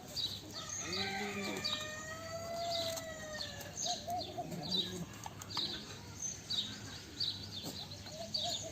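A rooster crowing once, a long call that starts about a second in and lasts nearly three seconds. Small birds chirp steadily in quick, high repeated notes throughout.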